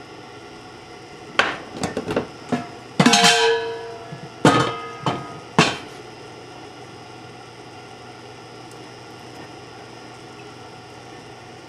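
Cookware clattering in a kitchen: a quick series of knocks and clanks from pans and a pot lid, one ringing briefly. After that only a steady low background noise remains.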